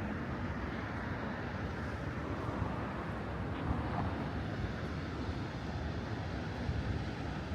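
Steady city street ambience: a low, even rumble of traffic with no distinct events.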